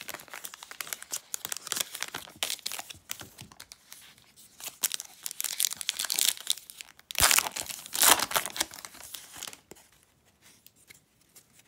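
A foil trading-card pack wrapper crackling as it is handled, then torn open and crinkled. The loudest tearing comes about seven to eight seconds in, and the sound dies away near the end.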